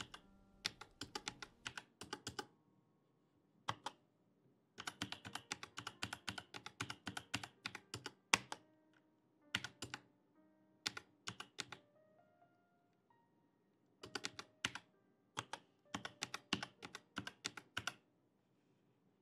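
Typing on a computer keyboard: runs of quick keystrokes broken by short pauses, stopping about a second before the end. Faint background music plays underneath.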